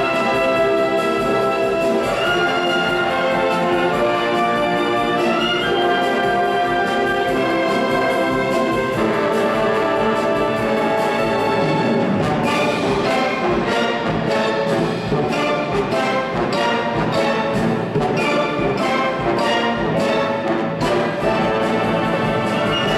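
Youth orchestra playing loud, brass-led music: held chords for the first half, then a steady beat of accented strokes for the rest.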